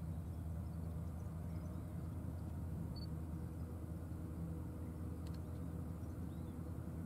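Distant diesel locomotives hauling a loaded narrow-gauge grain train, heard as a steady low engine drone.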